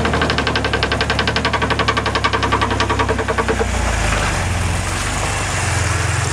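Ford Explorer Sport's V6 engine running under load while crawling through mud, with a rapid, even knocking at about ten a second that stops about three and a half seconds in.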